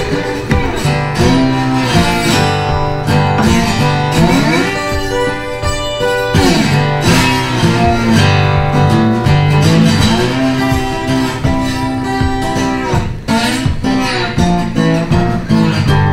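Background music led by guitar, with sliding notes.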